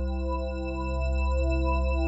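Ambient background music: long held tones over a deep, steady drone, some of the tones gently swelling and fading.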